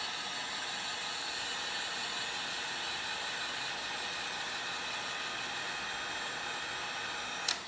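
Electric heat gun running steadily, its fan whirring with a hiss of air, blowing hot air onto a clear plastic hose to soften it; switched off with a click near the end.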